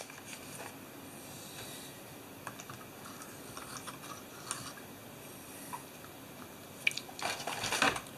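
Hands handling small valve parts and a new O-ring on a workbench: scattered faint clicks and ticks, with a louder rustling crackle about seven seconds in.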